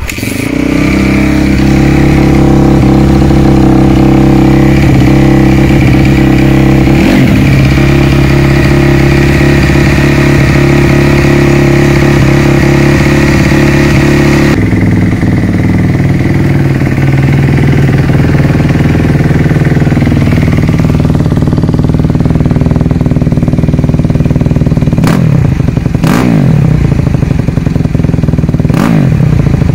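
Honda CRF250's four-stroke single-cylinder engine, breathing through a full Yoshimura twin-pipe exhaust, catching on a cold start and running loud at a fast idle. About halfway through the idle drops to a lower, steadier note. There is a short throttle blip early on and three sharp revs near the end.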